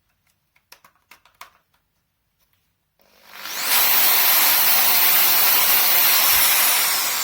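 A few light clicks, then a Bosch PSB 680 RE hammer drill's motor spins up with a rising whine about three seconds in, runs at high speed, and starts winding down with a falling whine near the end. The drill has just been cleaned inside, regreased and reassembled.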